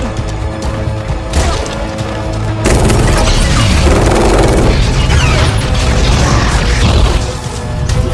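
Background music with a heavy low beat; about a third of the way in a loud rough, booming noise joins it for several seconds, then falls away near the end.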